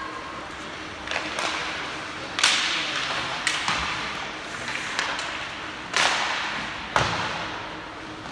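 Ice hockey play echoing in an arena: a series of sharp cracks and knocks from sticks striking the puck and the puck hitting the boards, about eight in all, with three loud ones near the middle and toward the end, over a steady hall background.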